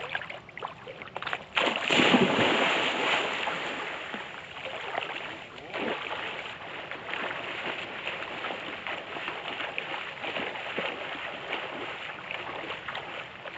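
Water splashing and lapping as a steady rushing noise, starting abruptly a second or two in.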